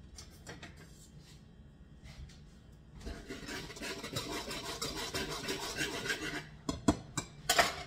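Wire whisk stirring dry flour and salt in a stoneware mixing bowl: a fast, continuous scratching that starts about three seconds in and runs for a few seconds. Near the end come a few sharp knocks, the loudest sounds.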